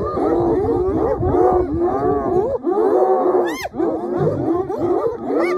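A pack of spotted hyenas calling all at once, a dense chorus of overlapping rising-and-falling yelps and whoops as they mob a lion on a kill.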